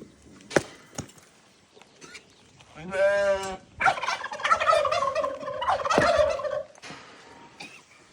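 Domestic turkey gobbling: a short call about three seconds in, then a loud rattling gobble lasting nearly three seconds. A sharp click sounds about half a second in.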